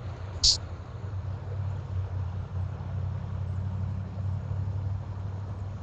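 Steady low outdoor rumble, with one short, sharp high-pitched click about half a second in.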